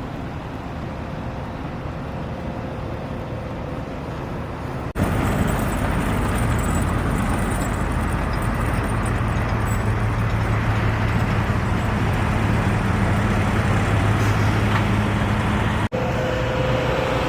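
Steady motor-vehicle and traffic noise. After a sudden cut about five seconds in it gets louder, with a steady low engine hum.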